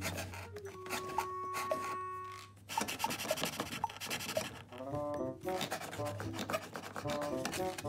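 Background music of short stepped notes; about three seconds in, a rasping scrape of cardboard and wood lasting about two seconds as the wooden moles of a cardboard whack-a-mole cat toy slide in their slots.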